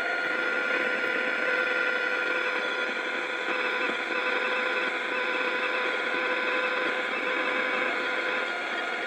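1965 Arvin battery radio putting out a steady hiss of static, with a few faint steady whistle tones and no station coming in clearly. The owner puts the interference down to a train going by.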